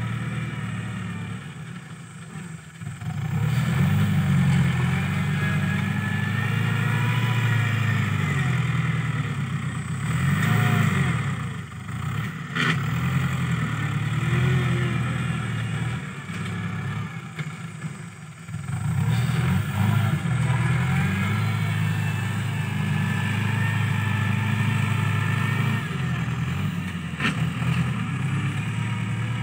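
New Holland TS90 tractor's diesel engine running under load as it works a three-disc plough and front blade across the field. The engine note dips briefly twice and picks back up, and swings up and down in pitch about midway.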